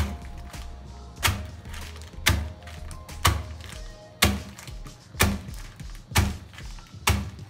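A stone pestle pounding Marie biscuits inside a plastic bag on a hard tabletop, crushing them into crumbs: dull thuds about once a second, eight in all.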